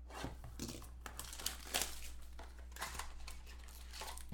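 Plastic wrap crinkling and tearing as a sealed trading-card box is opened by hand, an irregular run of crackles with a few sharper rips in the middle.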